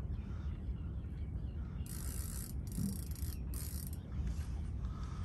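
Fishing reel's drag ratcheting out in three short high-pitched bursts about two seconds in, as a hooked queenfish pulls line, over a low steady rumble.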